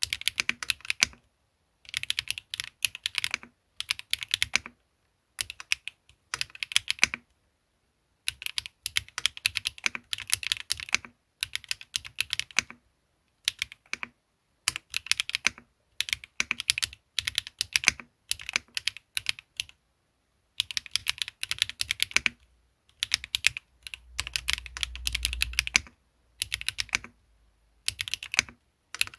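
KBD8X MKIII gasket-mount custom mechanical keyboard with Swagkey x HMX Garnet switches, aluminum plate, Aifei ABS keycaps and no foam, typed on in bursts of rapid key clacks with short pauses between. A brief low rumble sits under the typing about two-thirds of the way through.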